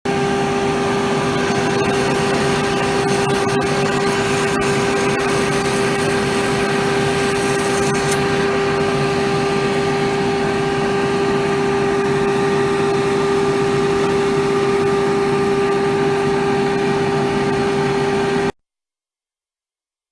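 CQ-38G sole-cavity milling machine running, its motor giving a steady even hum with a few faint ticks in the first seconds. The sound cuts off abruptly near the end.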